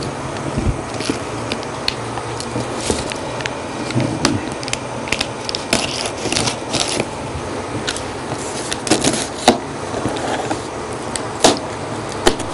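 Cardboard camcorder box and its packing being handled and opened: scattered crackles, taps and rustles, a few sharper knocks near the end, over a steady low background hum.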